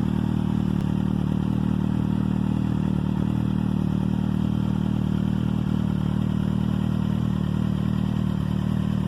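Kawasaki Z750's inline-four engine idling steadily through a newly fitted aftermarket sport exhaust, with no exhaust leaks.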